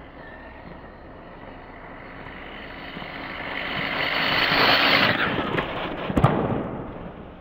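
HPI E-Firestorm 10T RC truck with a 5700kv brushless motor on a Mamba Max ESC making a high-speed pass: a whine of motor and drivetrain with tyre noise, growing louder as it nears, loudest about five seconds in, then fading away. A sharp knock sounds just after it passes.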